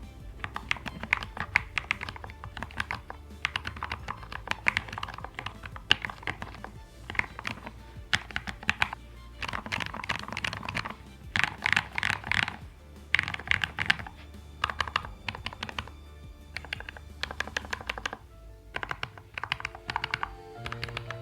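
Typing on an EPOMAKER Luma40 40% ortholinear mechanical keyboard with stock, unlubed Kailh White Rain low-profile switches in a CNC aluminum case with a PC plate. Quick runs of keystroke clicks come in bursts with short pauses between them.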